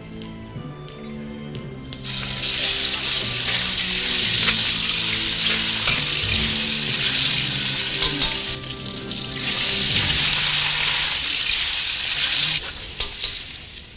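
Strips of boneless chicken leg quarter hitting hot oil in a wok and sizzling, the sizzle starting suddenly about two seconds in as the meat goes into the pan. They keep frying while being stirred with a spatula, the sizzle easing briefly about eight seconds in before coming back.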